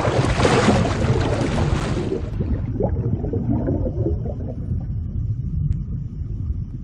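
Underwater splash-and-bubbles sound effect: a loud splashing hiss for the first two seconds or so, then a low bubbling rumble that carries on.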